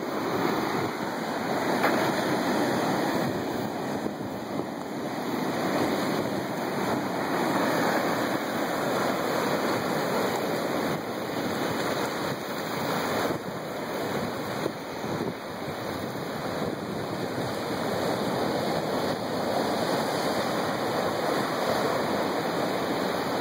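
Ocean surf washing over a flat rock shelf, with small waves breaking on the rocks: a continuous rushing wash that swells and eases every few seconds.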